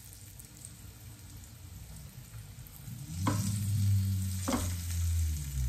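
Cornmeal-coated green tomato slices frying in hot bacon fat, a steady sizzle. Two sharp knocks come about three and four and a half seconds in, and the sizzle gets louder from the first one.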